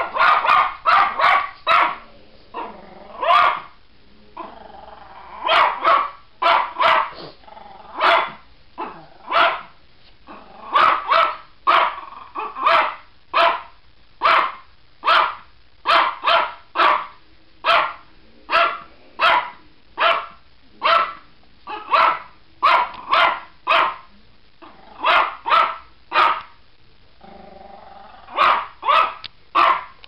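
Chihuahua barking at birds: short sharp barks in quick runs, one to two a second, broken by a few brief pauses.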